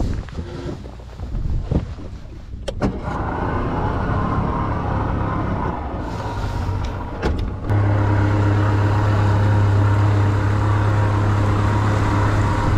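Small boat's two-stroke outboard motor running, with a few knocks in the first seconds. About eight seconds in it settles into a louder, steady higher-speed drone.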